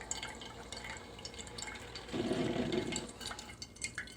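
PowerXL Grind & Go single-serve coffee maker brewing: hot water spattering and coffee dripping into the mug, with a louder burst lasting about a second, two seconds in.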